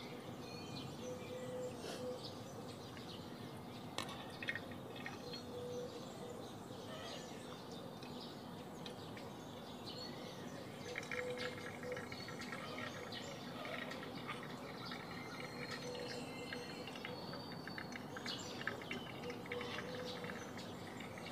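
Faint outdoor background of birds chirping and insects, with a few soft clicks and scrapes of a steel ladle against a steel bowl as curds are scooped out.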